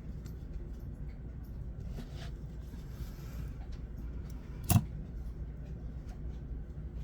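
Faint small handling clicks over a low steady hum, then one sharp click about two-thirds of the way through, as a small strong magnet snaps into place while a magnetic fidget slider is being reassembled.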